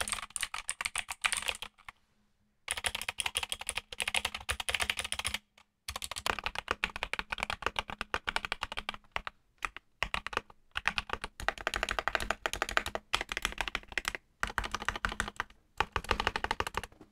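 Fast typing on a Redragon K552 mechanical keyboard, first with its stock clicky blue switches, then with lubed Akko Jelly Black linear switches under PBT keycaps. Dense runs of keystrokes are broken by a few short pauses.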